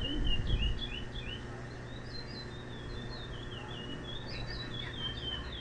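A caged songbird singing a continuous, rapid string of short high chirping notes, over a steady low hum.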